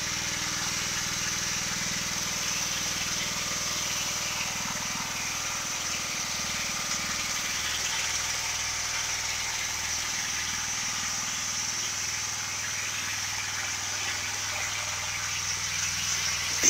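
Pressure washer running steadily, with the constant hiss of its wand spraying cleaning solution onto wooden deck boards.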